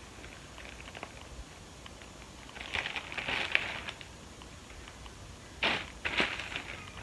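Plastic packaging crinkling as clothes are handled: a stretch of rustling about three seconds in, then two short sharp crackles near the end.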